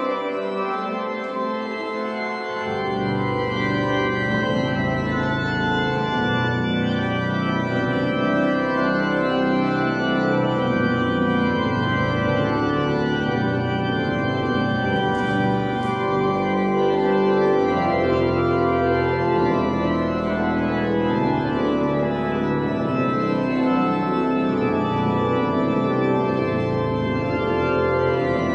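Church pipe organ playing sustained chords, with the deep pedal bass coming in about two and a half seconds in.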